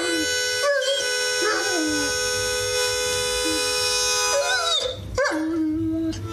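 A dog howling along to music in several short rising-and-falling howls, with a longer, steadier howl near the end, over steady held musical notes.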